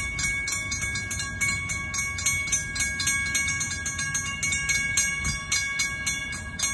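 Railroad grade-crossing warning bell ringing in rapid, evenly spaced strikes as the crossing gates come down: the warning that a train is approaching.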